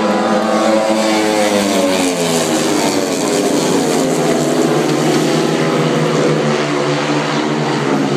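A pack of speedway bikes racing together, their 500 cc single-cylinder methanol engines running hard. Several engine notes overlap, sliding up and down in pitch as the riders go through the bend.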